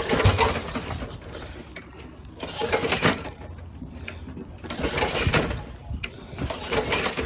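A Craftsman lawn mower engine being pull-started about four times, each pull a short rattling turn-over that does not catch. Fuel has just been poured into the intake; the engine wants to start and kicks back against the rope.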